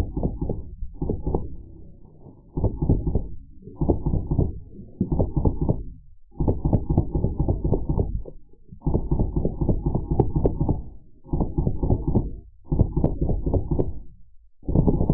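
Drozd Blackbird BB machine guns firing full-auto bursts, slowed down so each burst is a long run of deep, rapid thuds. Around ten bursts follow one another with short gaps.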